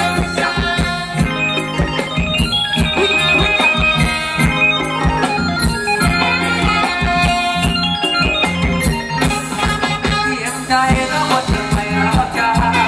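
Live ramwong dance band playing an instrumental passage: an organ-like electronic keyboard melody over a drum kit and bass with a steady beat.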